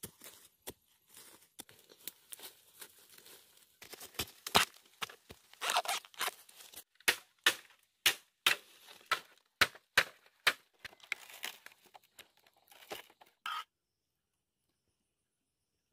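Repeated chopping and digging strikes of a blade tool, about one to two a second, with tearing and rustling of stems and soil between them, as cassava is dug out and bamboo stems are hacked. The strikes stop abruptly a couple of seconds before the end, leaving silence.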